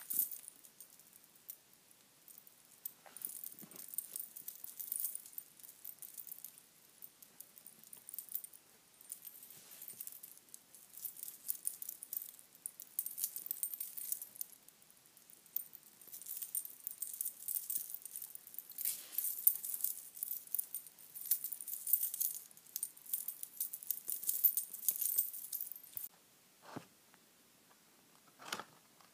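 Metal bangle bracelets jingling and clicking in quick, irregular clusters as the wrists move, then two soft knocks near the end.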